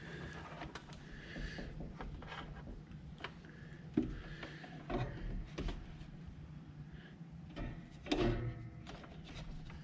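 Scattered light knocks, clicks and rubbing of hands handling tools and parts, with louder knocks about four, five and eight seconds in.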